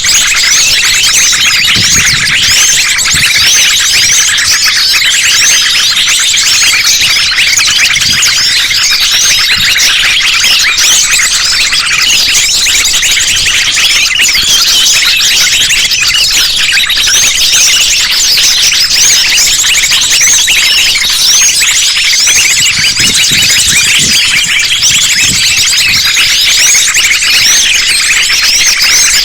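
Dense, loud chorus of many small birds chirping and twittering at once, high-pitched and unbroken: a layered bird-lure recording mixing sunbirds and other small songbirds.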